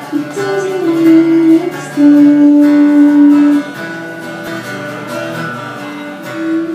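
Guitar music with long held melody notes that step from one pitch to the next.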